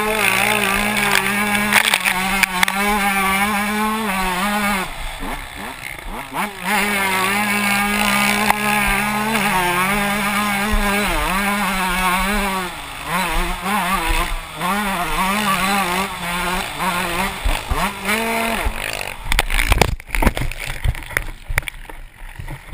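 Dirt bike engine heard close up from an on-board camera, revving up and down as it is ridden hard through a sandy motocross track. Near the end the engine note drops away under a thump and rough, scuffing noise.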